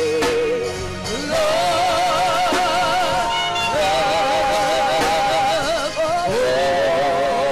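Worship singing with music: a few long held notes, each wavering with vibrato for about two seconds.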